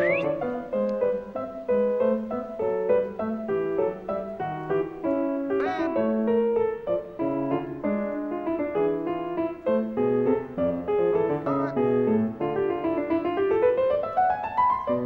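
Background piano music: a busy run of many short notes, with a rising run of notes near the end.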